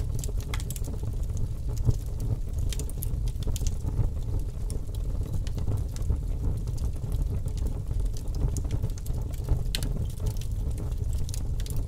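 Fire burning: a steady low rumble with scattered crackles and pops.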